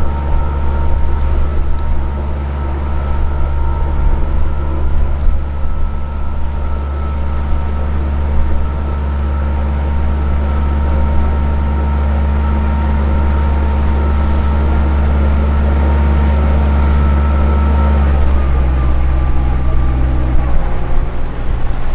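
Small canal tour boat's motor running steadily under way: a loud, even low hum with a faint steady whine above it. About 18 seconds in, the tone drops and changes.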